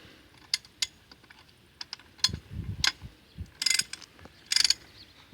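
Ratchet wrench clicking in two short bursts late on, amid scattered metal clicks and a few dull knocks of tools on engine parts.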